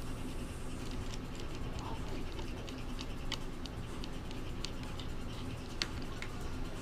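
A screwdriver tightening a bolt on a 3D printer's frame plate: faint, irregular clicks and light scraping of the tool and hardware, over a steady low hum.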